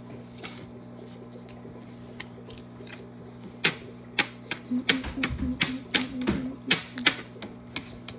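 Clear blue apple squishy toy being played with for its sound: after a quiet start, a rapid, irregular run of sharp sticky clicks and pops for about four seconds, with soft thuds in the middle.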